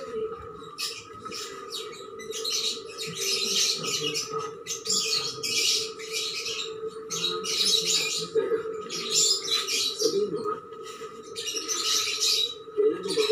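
Hands rubbing and tossing a dry potting mix of cocopeat, sand, garden soil and rice hull in a plastic tray: irregular rustling and crunching strokes about once a second, over a steady faint background tone.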